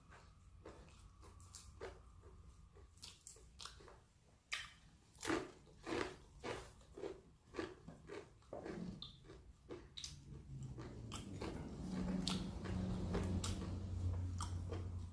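Close-up chewing of crispy fried chicken and rice, with crunching bites. The crunches come louder and regular, about two a second, in the middle, and a low hum rises under the chewing in the last few seconds.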